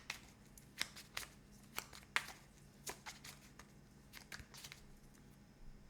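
Tarot cards being handled: a series of irregular light clicks and snaps as cards are flicked and laid down.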